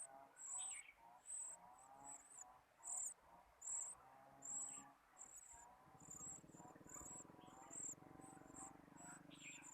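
Faint outdoor animal chirping: short high-pitched chirps repeating about once or twice a second, with softer lower calls. A low, steady buzz comes in about six seconds in.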